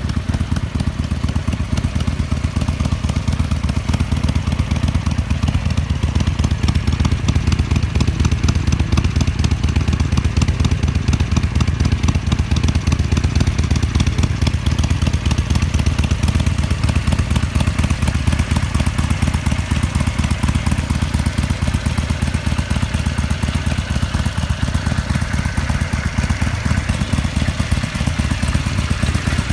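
2015 Harley-Davidson Sportster Seventy-Two's air-cooled 1200 cc V-twin with its stock exhaust, idling steadily with an even, low, pulsing beat.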